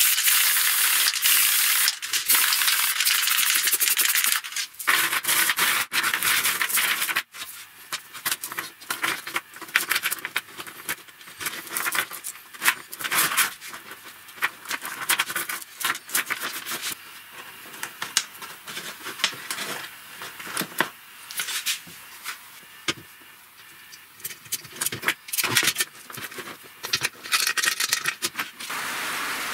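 Aerosol spray paint hissing in three long bursts for about seven seconds, then a steel chain and snap hook clinking and rattling irregularly as they are handled and fastened.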